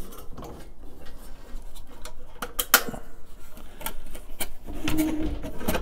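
Scattered metal clicks and knocks from the Char-Griller Akorn kamado's steel ash pan as it is unlatched and lowered from under the firebox. A brief low hum comes about five seconds in.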